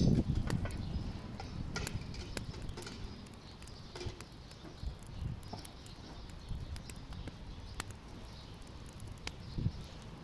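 Scattered clinks and light knocks of a metal pot lid and spoon being handled on a cooking pot, with a louder clatter right at the start, over the faint crackle of a wood fire.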